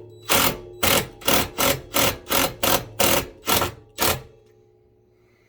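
Electric drill running while drilling a hole in the sewing table, with about a dozen rasping bursts, roughly three a second, that stop about four seconds in.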